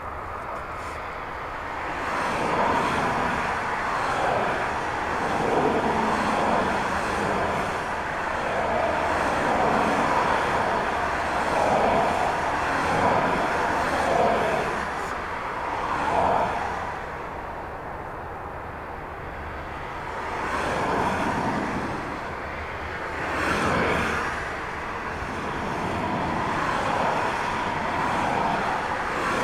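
Outdoor engine rumble from vehicles, swelling and fading every couple of seconds without any clear steady whine.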